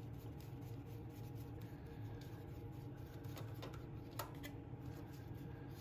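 Faint ticks and scrapes of a hand driver turning the small mounting screw of the new breaker points on a 1975 Briggs & Stratton engine, with one sharper click about four seconds in, over a steady low hum.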